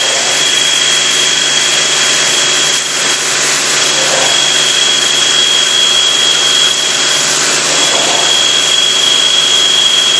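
A 46 mm drill on a heavy CNC drilling machine roughing a hole through a stack of SA-516-70 steel baffle plates at 1500 rpm and 6 inches a minute, with coolant spraying: a steady loud hiss with a constant high whine over it.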